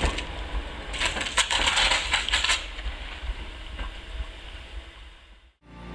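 Electric train's current-collector shoes arcing against an iced third rail, a rapid crackling and snapping over the low rumble of the train. The crackles are thickest a second or two in and fade as the train draws away.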